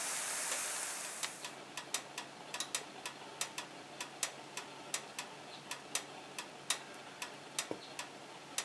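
Plantain slices sizzling in hot frying oil, the sizzle dying away about a second in and leaving sporadic sharp crackles and pops, a few each second, over a low steady hum.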